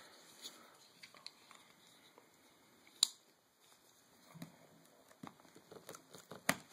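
Quiet handling noise: scattered light taps and clicks, with a sharp click about three seconds in and another near the end.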